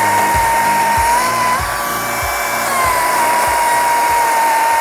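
CAT 60V 18-inch brushless battery chainsaw running at full throttle while cutting a thin slice off a Norway maple limb. It makes a steady high whine that steps up in pitch about a second and a half in and settles back about a second later.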